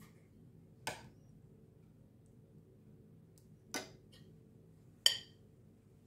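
Metal serving ladle and spoon clinking against ceramic dishes: three separate clinks, about a second in, near four seconds and just after five seconds, the last loudest with a short ring.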